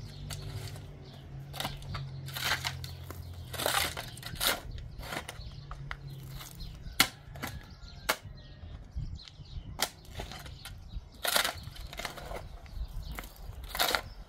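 Irregular crunching and knocking, a dozen or so short strokes at uneven intervals, with a low steady hum under the first half.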